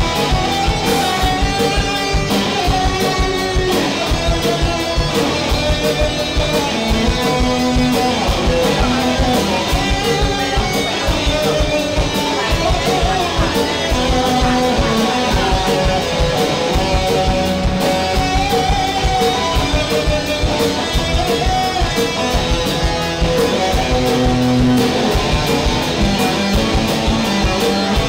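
Rock band playing live: an electric guitar solo over bass guitar and a steady drum-kit beat.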